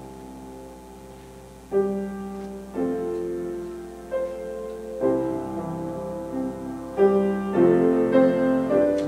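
Grand piano played solo: slow, sustained chords, soft at first, then a louder chord about two seconds in and further chords struck every second or so.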